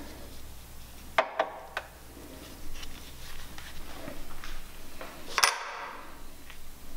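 Scattered metallic clicks and clinks from a ratchet and socket working a bolt loose, with a sharper metal knock about five and a half seconds in.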